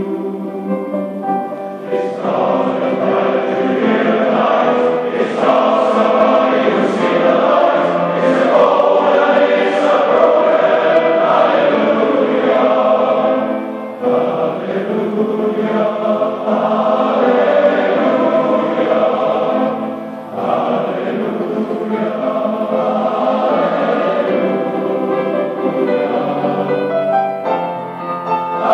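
Massed Cornish male voice choir singing with orchestral accompaniment in long, sustained chords. The sound dips briefly between phrases about halfway through and again about two-thirds through.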